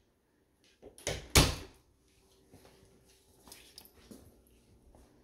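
A pantry door being shut: two sharp knocks about a third of a second apart, a second in, the second the louder, followed by faint small clicks and taps.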